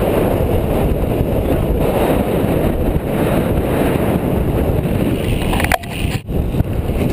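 Wind rumbling over the microphone of a camera riding along on a moving bicycle, a steady low rush that dips briefly about six seconds in.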